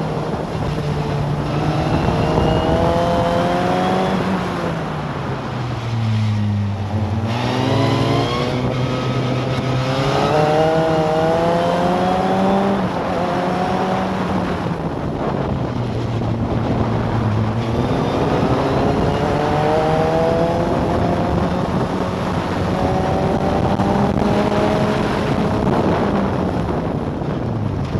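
Onboard sound of a historic formula single-seater's engine at racing speed, its pitch climbing in long pulls and dropping sharply several times as the car brakes for corners and accelerates out again, over constant wind and road noise.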